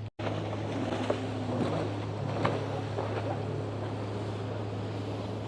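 Steady waterfront ambience: a distant boat motor's low, even hum with wind on the microphone and a few faint small knocks.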